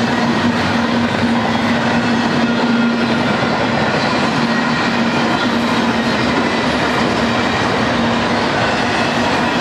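BNSF intermodal freight train rolling past: double-stack container well cars and trailer-carrying flatcars, their steel wheels on the rails making a steady, even rolling noise with a constant low hum.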